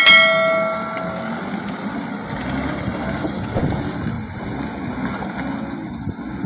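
Palm-oil haul truck running as it crawls through deep mud, a steady low engine rumble. Right at the start a loud metallic clang rings out and dies away over about a second.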